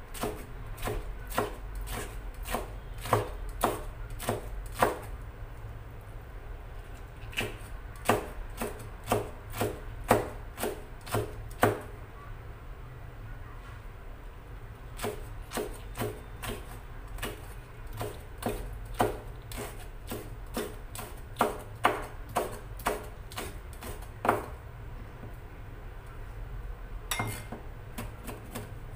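Kitchen knife chopping food finely on a cutting board: uneven runs of quick, sharp strokes, roughly two or three a second, broken by a few pauses of two to three seconds.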